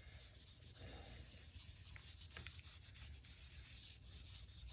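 Faint rubbing of a cloth wiping water-based stain onto a mahogany guitar neck's headstock, with a couple of light ticks in the middle.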